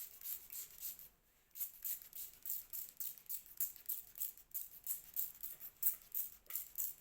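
Trigger spray bottle misting water and conditioner onto curly human hair, squeezed in quick repeated pumps of about three sprays a second, with a short pause about a second in.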